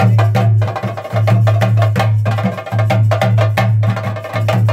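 Rapid stick drumming on a cylindrical chenda-style drum, the dense fast strokes of Theyyam ritual drumming, with a steady low drone that breaks off and comes back in time with the beat.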